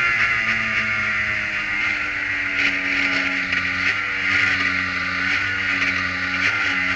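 Kohler engine of a Prototype 1 race car, heard from the cockpit as the car brakes hard and shifts down from fourth to second gear, its note jumping in steps with each downshift. A steady rushing wind and road noise runs under it.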